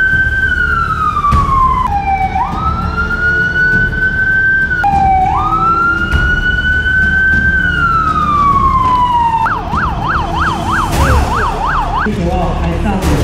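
Police vehicle siren sounding a slow rising and falling wail, which switches to a fast warble of about three cycles a second for a couple of seconds near the end. Low vehicle engine noise runs underneath.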